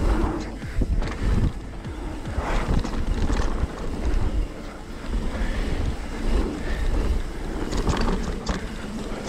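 Wind buffeting the camera microphone and tyres rolling on dirt as a mountain bike descends at speed, with irregular knocks and rattles from the bike over rough ground.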